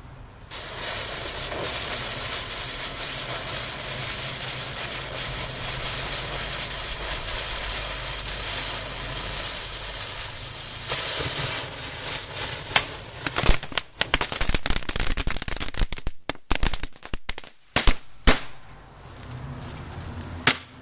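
Small ball-type firework novelty: a lit fuse or charge hissing steadily for about ten seconds, then a run of crackling pops and sharp bangs, with a few louder bangs among them.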